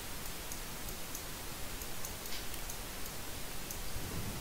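Faint light ticking, a few ticks a second, over a steady hiss.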